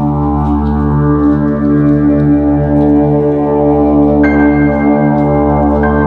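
Background ambient music: sustained drone chords over a low bass hum. A higher held note comes in about four seconds in.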